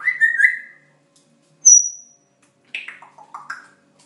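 African grey parrot calling and whistling. There is a short whistled call at the start, a thin high whistle about two seconds in, and near the end a run of short notes that slide down in pitch.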